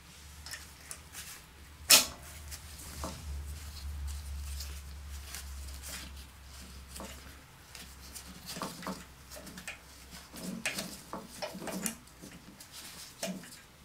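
Metal clicks and scrapes of a valve spring compressor being worked onto the valve springs of a flathead Briggs & Stratton mower engine. One sharp click comes about two seconds in, followed by scattered lighter clicks and rustles, over a low steady hum in the first half.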